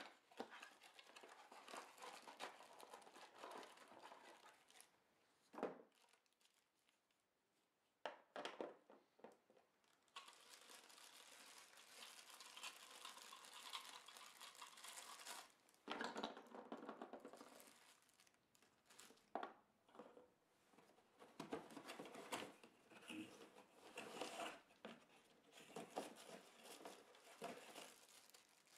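Faint crinkling and rustling of a clear plastic packaging bag being handled and opened, in stop-start bursts, with a few light knocks as cardboard and small parts are set down.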